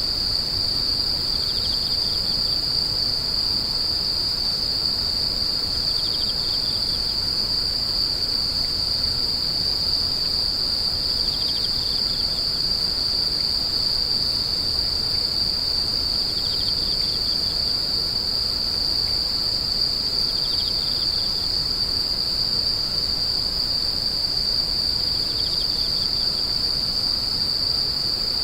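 Grass insects calling: an unbroken, steady high-pitched trill, joined six times by a second insect's short pulsed chirp a little lower in pitch, about every five seconds.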